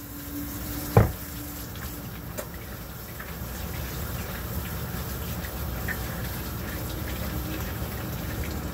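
Kitchen faucet running into a sink while hands are washed with soap, with one sharp knock about a second in.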